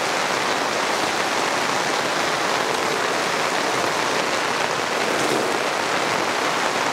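Heavy rain in a steady downpour, beating on the fabric of a pop-up canopy overhead.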